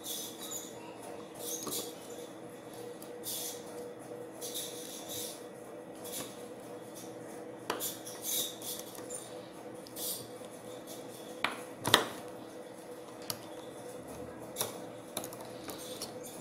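Small star-head precision screwdriver turning out the tiny screws of a WD My Passport hard drive's circuit board: faint repeated scratching and ticking of metal on metal, with a few sharp metallic clicks, the loudest about twelve seconds in. A steady low hum runs underneath.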